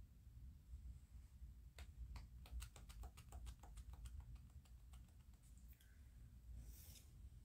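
Faint typing: a quick run of light clicks, four or five a second, for about four seconds, followed near the end by a short hiss, over a low steady room hum.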